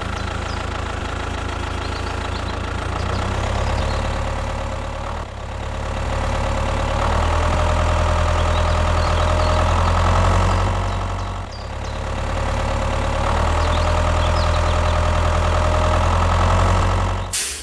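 Large tractor engine running at a steady idle with a deep, knocking rumble, swelling and dipping in a loop that repeats about every six seconds. It cuts off at the very end.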